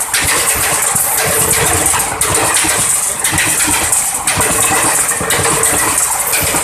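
Passenger coaches of an express train rolling past at speed close by: a loud, steady rumble and rush of steel wheels on rail, with a rhythmic clatter about once a second as the coaches go by.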